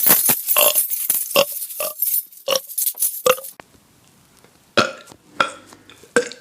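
A person burping in a quick string of short belches, about three a second. After a gap of about a second come three more separate belches.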